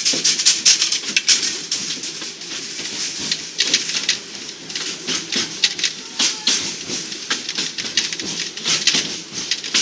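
Rail car of the Wildlife Express train rolling along the track, heard from aboard: irregular rattling and clicking over a steady rushing hiss.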